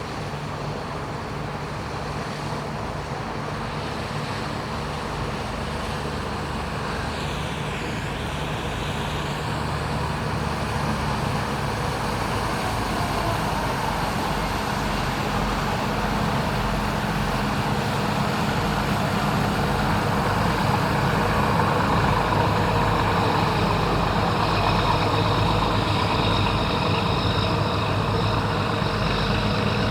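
A heavy engine running steadily, growing louder as it draws closer.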